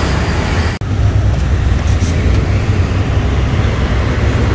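Steady low rumble of street traffic, broken by a brief cut-out about a second in.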